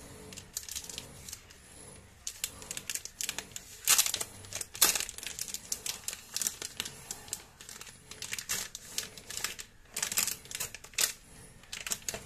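Packaging of a photo paper pack being opened by hand: the cardboard box and its foil-lined inner wrapper crinkling and tearing in irregular sharp crackles, loudest about four and five seconds in and again around ten to eleven seconds.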